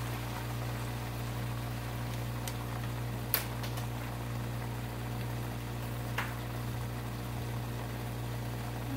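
Long beans and pork simmering in a little water in a nonstick wok, a soft steady bubbling with a few sharp pops, over a steady low hum.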